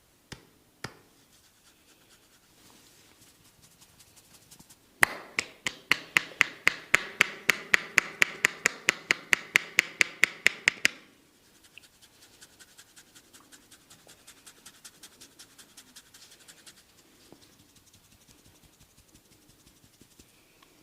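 Two sharp clicks, then a massage percussion about five seconds in: a barber's hands striking the head in a fast, even run of loud slaps at about five a second for some six seconds. Softer, quicker taps follow for about five seconds.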